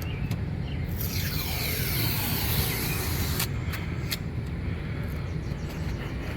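Tape being peeled off a vehicle door, a long tearing rasp starting about a second in and lasting some two and a half seconds, followed by a few light clicks, over a steady low rumble.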